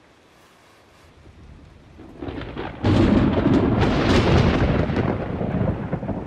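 Near quiet for about two seconds, then a deep, thunder-like rumble swells up and stays loud.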